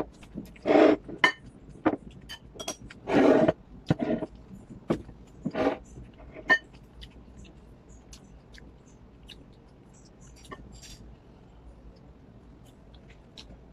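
Porcelain bowls and plates clinking and knocking on a tabletop as they are handled, in a run of sharp clicks and a few short, louder scrapes over the first seven seconds, followed by only faint small ticks of eating.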